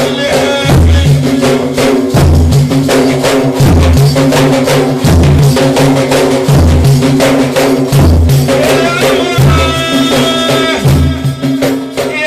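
Sufi dhikr: frame drums beaten in a steady rhythm, with a deep stroke about every second and a half and lighter hits between, under chanting voices that hold long notes near the end.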